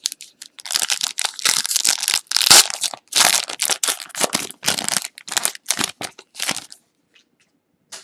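Foil trading-card pack wrapper crinkling and tearing as a pack is opened by hand, a run of crackly rustles loudest about two and a half seconds in and stopping near the end.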